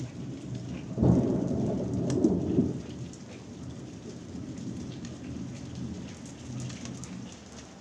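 Thunder over steady rain: a sudden clap about a second in rolls on for a couple of seconds, then fades into a low rumble.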